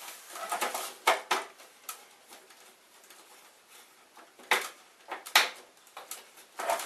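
Hard plastic clicks and knocks from a printer's casing being handled and prised apart, in short clusters with quiet gaps between, sharpest about a second in and again around four and a half and five and a half seconds.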